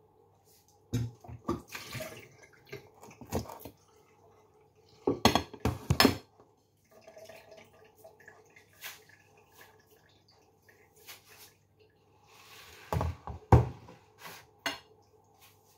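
Ceramic plates and a bowl knocking and clinking as they are set down and shifted, in three bursts: about a second in, around five to six seconds in, and near the end. A low steady hum runs underneath.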